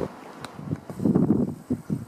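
Wind buffeting the microphone in irregular gusts, starting about a second in.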